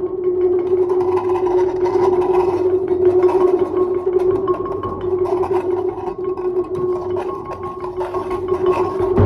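Sounding stone (lithophone) ringing one steady pitched tone, kept going by a dense run of quick light strokes and taps.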